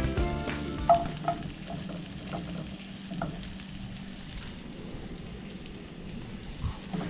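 Food frying in a pan: a steady sizzle with a few light clicks of a utensil.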